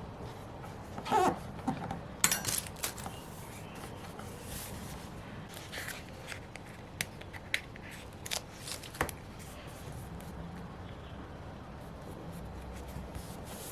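Stationery being handled on a planner page: paper, stickers and washi tape giving scattered rustles, scrapes and sharp clicks, with a short falling squeak about a second in and the loudest clicks a couple of seconds in.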